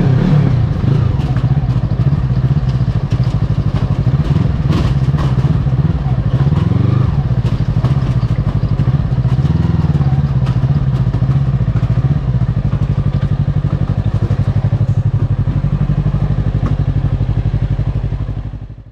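Yamaha YZF-R25's 249 cc parallel-twin engine running at low, steady revs, rising and falling slightly now and then, with a few light clatters about four to five seconds in. It fades out at the very end.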